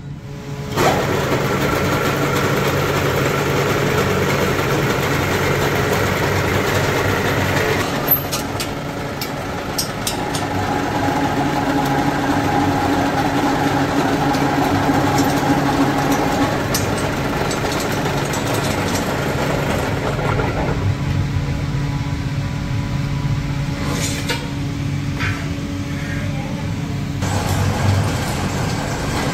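Motor-driven metalworking machinery running steadily as steel rod is processed, a loud hum with held tones that changes abruptly a few times, with occasional metal clicks.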